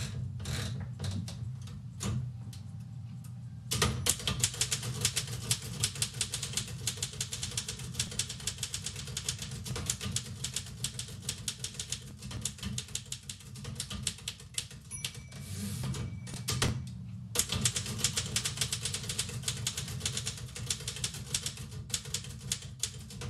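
Antique Royal manual typewriter being typed on: clacking keystrokes, sparse at first, then fast and continuous from a few seconds in, with a short pause about three-quarters of the way through, over a steady low hum.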